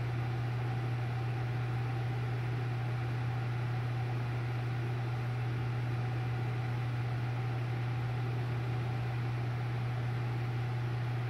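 Steady low mechanical hum with a constant hiss, unchanging throughout.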